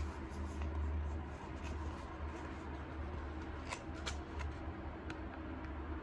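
Pages of a small paperback book being handled and leafed through by hand: soft paper rustling and a few crisp page flicks, over a steady low hum.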